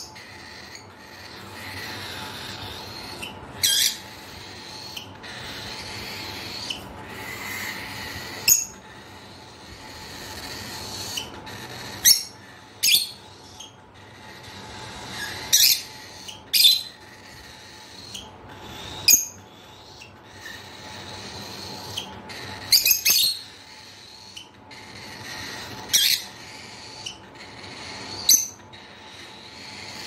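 Lovebirds giving short, sharp, high-pitched shrieking calls, about a dozen of them, spaced a second or more apart, some coming in quick pairs.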